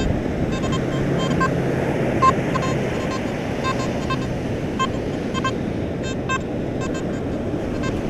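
Nokta Makro Simplex metal detector giving short, irregular beeps over a steady wash of surf and wind.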